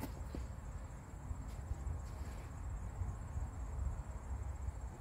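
Quiet background with a steady, faintly pulsing high-pitched trill over a low rumble, and a couple of faint light clicks.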